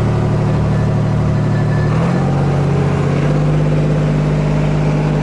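Fishing boat's engine running steadily while the boat heads out of the harbour, its note shifting slightly about two seconds in.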